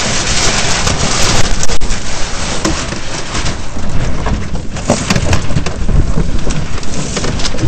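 Wind buffeting the microphone of a deck-mounted camera over water rushing and splashing along the hull of a Flying Dutchman racing dinghy under sail, with a few irregular thumps as the hull meets the chop.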